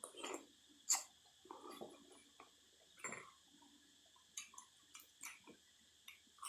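Eating sounds of a person working through a bowl of noodle soup: irregular short smacks, clicks and wet mouth sounds of chewing and slurping. Cicadas make a faint steady high drone underneath.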